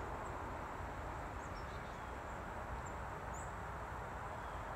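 Steady outdoor background hiss with a low rumble underneath, and a few faint, short, high bird chirps scattered through it.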